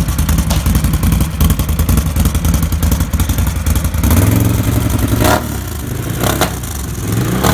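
ATV engine idling through an RJWC Mud Edition single slip-on exhaust, then blipped with the throttle about four seconds in, revving up and dropping back twice. The sound echoes in an enclosed shop.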